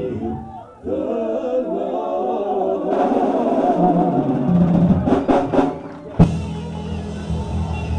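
Live gospel music: voices singing over a band with drums. About five seconds in there are a few quick drum strokes, then a loud hit, and the full band with bass and guitar comes in.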